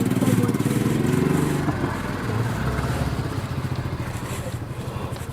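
A vehicle engine running at low speed. It is louder for the first couple of seconds, then eases off and runs on more quietly.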